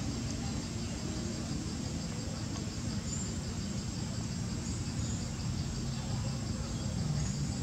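Insects chirping in a steady, rapid, even pulsing high tone, over a continuous low rumble.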